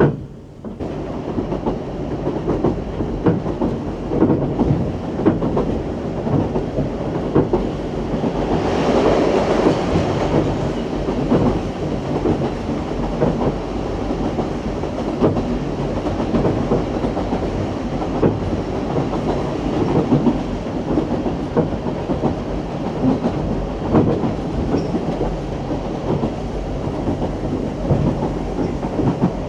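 Steam train carriages running along the track: a steady rumble with wheels clicking over the rail joints, and a louder rushing stretch about nine seconds in.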